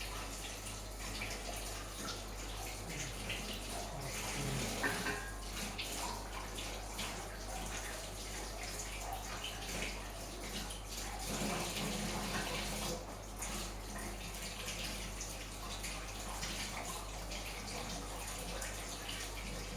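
Puris deep-frying in hot oil: a steady sizzle with many small crackles.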